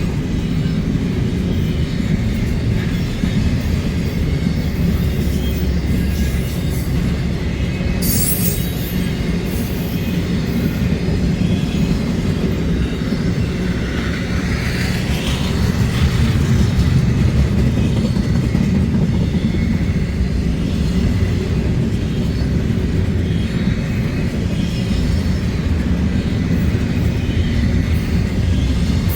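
Train rolling past on the tracks: a steady, loud low rumble of wheels on rail. A brief high-pitched sound comes about eight seconds in, and a short wavering wheel squeal around fifteen seconds in.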